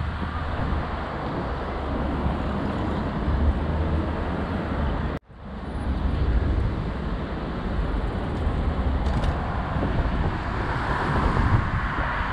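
City street traffic: a steady rumble of passing cars, cutting out for an instant about five seconds in, with a passing vehicle swelling near the end.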